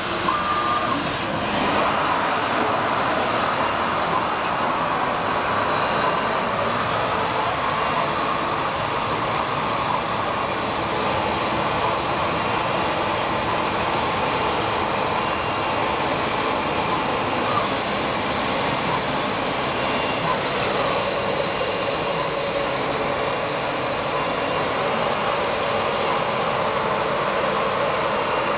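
WEEKE CNC woodworking machining centre running: a steady, unbroken machine noise of motor and rushing air at an even level.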